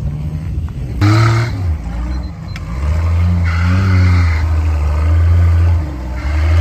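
Off-road racing buggy's engine revving hard as it churns through a mud pit. It surges about a second in, then holds a long high-revving pull from about three to six seconds.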